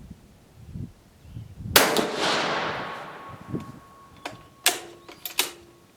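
One rifle shot from a Dutch Beaumont rifle a little under two seconds in, its report echoing and fading over about a second and a half. A few sharp metallic clicks and clacks follow as the bolt is worked; the spent case is reluctant to extract.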